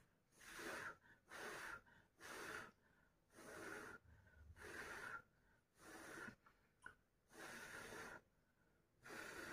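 A man blowing on a heated water-heater thermostat to cool it, faint short puffs of breath about once a second, nine or so in all. He is cooling it so the cut-out switch closes again.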